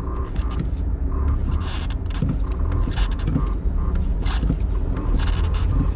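A 2016 Skoda Octavia on the move: a steady low rumble with several short knocks, a clunking the workshop traces to worn lower control arm ball joints and a worn link rod.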